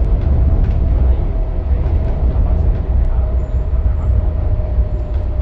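Hong Kong MTR Tung Chung line train running through the tunnel, heard from inside the carriage: a loud, steady low rumble with a thin whine that drifts slowly lower in pitch.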